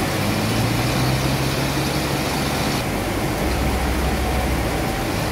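Sawmill machine saw running steadily, a loud even mechanical noise with a low hum that drops deeper about three and a half seconds in.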